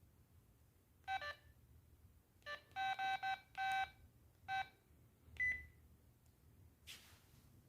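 LG MD5330 mobile phone giving short electronic key-press beeps as its menus are stepped through. There are about eight beeps at irregular intervals, including a quick run of three in the middle, and one higher, purer beep about five and a half seconds in. A faint brief swish follows near the end.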